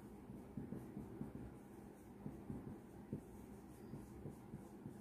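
A marker writing on a whiteboard: faint, short, irregular strokes.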